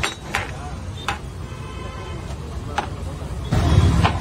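A metal scoop knocking against a large aluminium pot while biryani rice is turned over: a few sharp clinks, irregularly spaced. About three and a half seconds in, a louder low rumble sets in.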